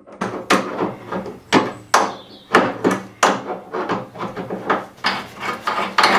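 Metal tools clanking on a radiator valve as its nut is undone with an adjustable spanner and water pump pliers: an irregular string of sharp knocks and clinks, about two or three a second.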